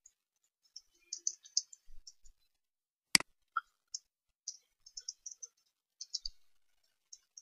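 Computer keyboard being typed on: a scatter of light, quick key clicks in short runs, with one louder, sharper click about three seconds in.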